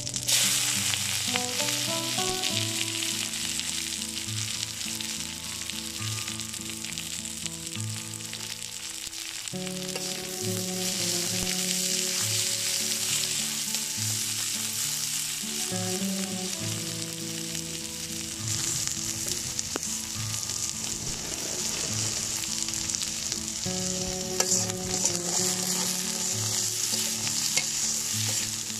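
Chopped onions sizzling as they fry in hot oil in a wide metal karai, stirred and turned with a long spatula that scrapes against the pan.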